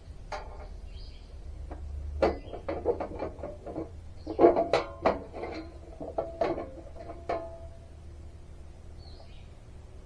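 Knocks, clicks and clanks of metal parts being handled while a cover is taken off a battery. They come in a quick irregular string from about two seconds in until about seven seconds in, some ringing briefly.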